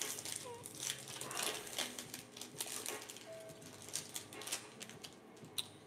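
Foil trading-card pack wrapper crinkling and tearing as it is ripped open by hand and the cards are slid out: soft, irregular crackles.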